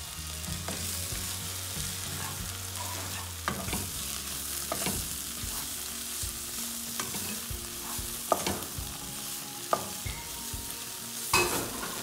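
Onions, tomato and spice powders sizzling as they fry in a nonstick kadai, while a plastic spatula stirs and scrapes through them, knocking sharply against the pan several times.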